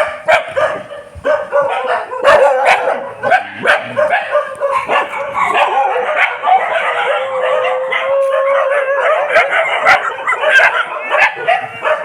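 A pack of many dogs barking and yelping over one another, with one long held howl a little past the middle.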